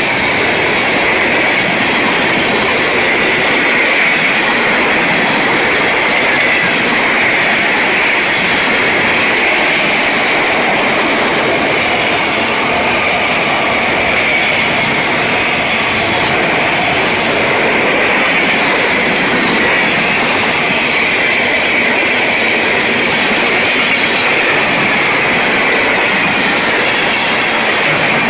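Freight train cars rolling past close by: a steady, loud rush and rattle of steel wheels on the rails, with a steady high whine over it.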